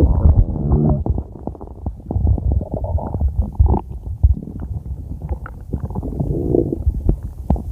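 Stomach growling: an uneven run of low gurgles and rumbles with short squealing, gliding tones, loudest in the first second, easing and swelling again in waves.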